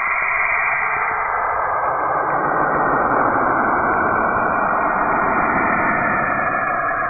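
A planet 'space sound', a dense, steady rushing drone like radio static, which grows fuller and deeper about two seconds in.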